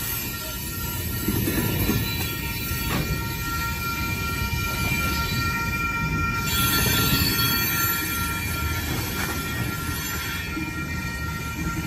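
Freight train of tank cars rolling through a grade crossing: a steady rumble of wheels on rail with a thin, high, steady wheel squeal over it. One sharp knock about three seconds in.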